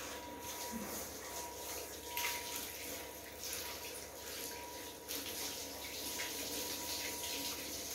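Handheld shower head running steadily while a dog is rinsed, a continuous hiss of spraying water.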